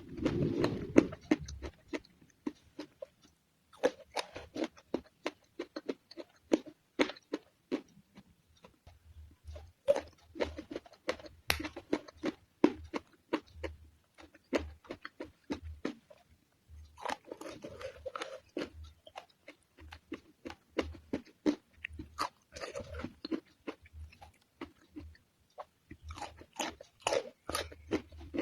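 Close-up crunchy chewing and biting. The crunches come in quick runs with short pauses between them.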